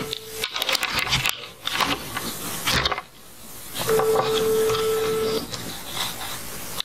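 Title-card sound effects: bursts of crackling noise and clicks that start and stop abruptly, with a steady tone held for about a second and a half near the middle.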